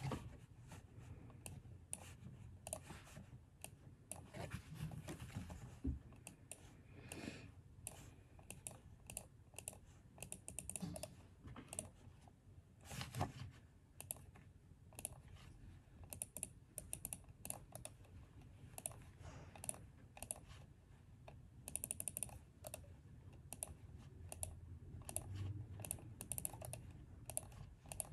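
Typing on a computer keyboard: faint, irregular runs of quick key clicks over a low room hum.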